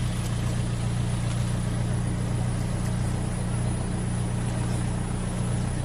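Off-road vehicle's engine idling steadily, a constant low hum.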